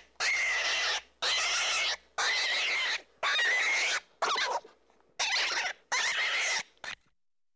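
An animal's repeated squealing calls, about one a second, each a harsh, noisy squeal with a steady high pitch running through it. The calls stop about seven seconds in.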